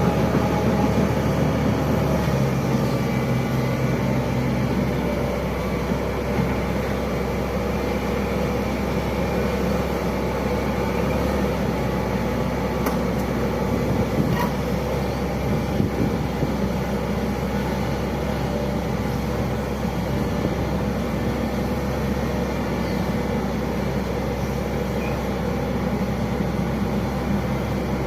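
Hitachi Zaxis 110 excavator's diesel engine running steadily, its note shifting a little in the first few seconds.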